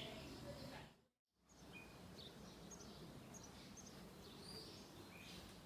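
Faint outdoor ambience with scattered short, high bird chirps. The sound cuts out completely for a moment about a second in.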